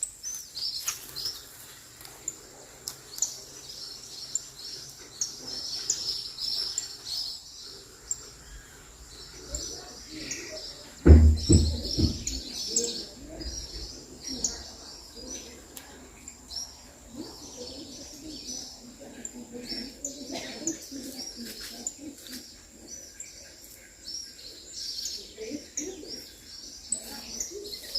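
Many small birds chirping and twittering in a dense, continuous chorus of high, short calls. A single loud low thump comes about eleven seconds in.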